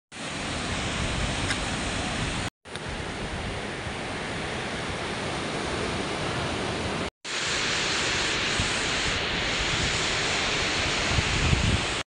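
Sea surf breaking on a sandy beach with wind buffeting the microphone: a steady rushing noise with uneven low rumble. It drops out briefly twice, about two and a half and seven seconds in, where the shots change.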